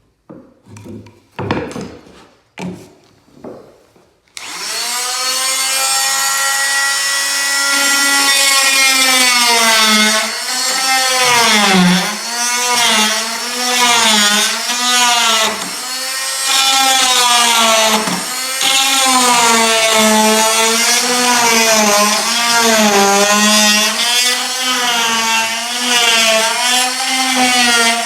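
A few knocks, then an electric power tool starts up about four seconds in and runs on wood, its motor pitch dipping again and again as it is pushed into the work.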